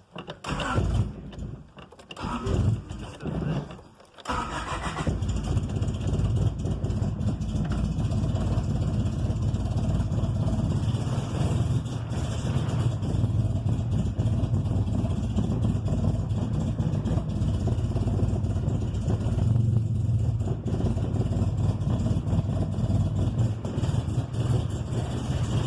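1995 Honda Civic EG coupe engine started cold: a few separate bursts of noise over the first four seconds as it is cranked, then it catches and runs steadily. It is running rough on a cold start, a daily hard-start fault the owner has not yet traced.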